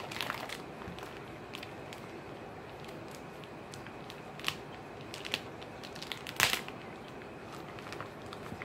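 Plastic wrapping on a spiral-cut ham crinkling as it is cut and torn open with a dull knife, with scattered sharp crackles and one louder crackle about six and a half seconds in.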